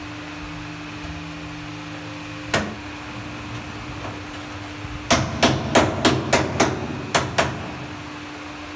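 Ceramic wall tile being knocked to bed it into combed tile adhesive: one sharp knock, then a quick run of eight knocks, about three a second.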